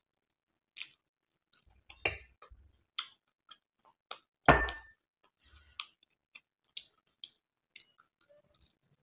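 Scattered small clicks and taps of fingers and a sweet against clear glass bowls, with one loud glass clink about four and a half seconds in that rings briefly.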